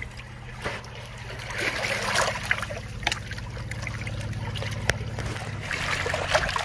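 Water trickling and splashing while a freshly caught fish is cleaned and gutted, with a few sharp clicks, over a steady low hum.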